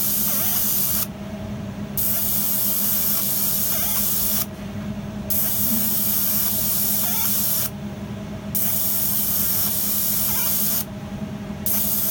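3D laser engraving machine at work: a loud, even hiss that stops for just under a second and starts again about every three seconds, over a constant low hum.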